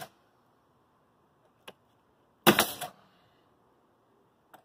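Pneumatic coil nailer firing a nail into window trim: one sharp bang about two and a half seconds in that trails off over half a second, with the tail of the previous shot at the very start. Faint clicks come between the shots.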